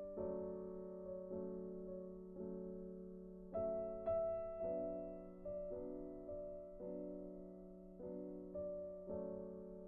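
Soft, slow solo piano background music, chords struck about once a second and left to fade.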